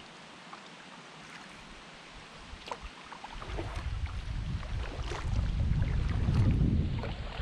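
Kayak paddle strokes in calm water: the blades dipping with small splashes and drips. From about three seconds in, a low rumble of wind on the microphone builds up and is loudest near the end.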